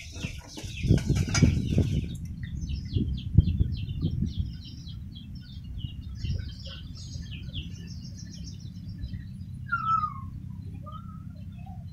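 Birds chirping and calling, with scuffling knocks and thumps in the first two seconds. After that come short, rapid chirps over a low steady rumble, and one falling whistled call near the end.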